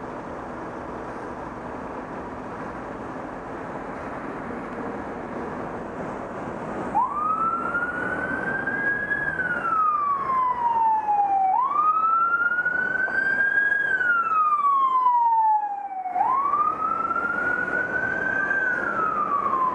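Steady road-traffic noise, then about seven seconds in an emergency-vehicle siren starts wailing. It rises quickly and falls slowly in pitch, three sweeps about four and a half seconds apart, and is louder than the traffic.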